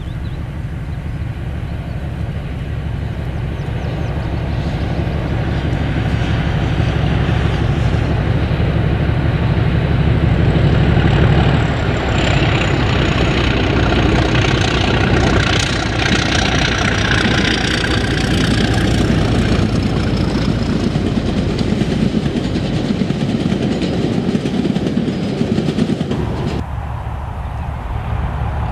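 British Rail Class 37 diesel locomotive working a freight train, its engine growing louder as it approaches and passes, with the wagons rolling behind it and a faint high falling whine in the middle. Near the end the sound cuts abruptly to a quieter, more distant train.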